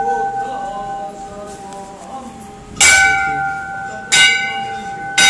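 Temple bell rung three times: struck about three seconds in, again a little over a second later, and once more at the very end. Each strike rings on in a steady tone that fades slowly.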